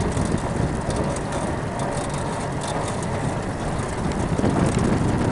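Rolling noise of a home-built aluminium recumbent trike being ridden, with wind buffeting the microphone in a steady, uneven rumble.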